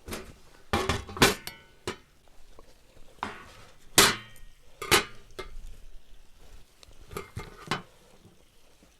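Cookware and utensils being handled: a run of irregular sharp knocks and clinks, some with a short metallic ring, the loudest about four seconds in.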